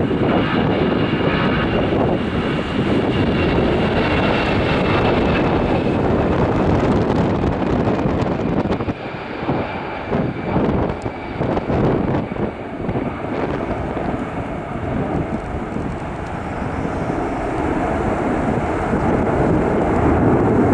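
Airbus A320 jet engines at takeoff thrust during the takeoff roll, a loud steady jet noise. A faint high whine slides slowly down in pitch over the first several seconds, and the noise swells again near the end.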